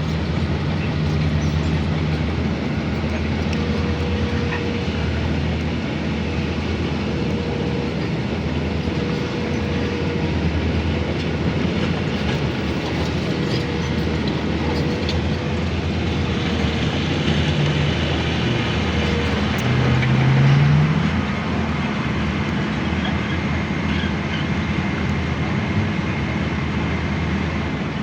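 Heavy diesel earthmoving machinery running steadily with a low engine rumble; the engine rises in pitch briefly about twenty seconds in.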